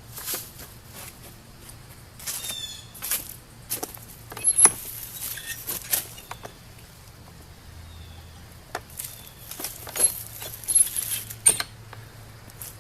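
Irregular clicks, knocks and light rattles of tools and hardware being handled, with a few brief high chirps; no power tool runs.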